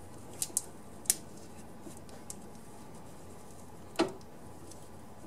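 A few faint, short crackles and clicks as old ceramic insulation tape, browned and brittle from use, is pulled apart and peeled off a 3D printer extruder's heater block by hand; the loudest comes about four seconds in.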